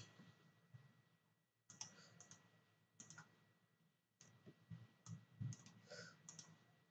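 Near silence with a few faint, scattered computer mouse clicks as constraint geometry is selected.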